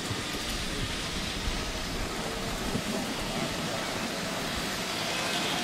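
Miniature railway train, a diesel-outline locomotive with a driver on a riding car, running past on its track: a steady rushing noise that swells slightly near the end.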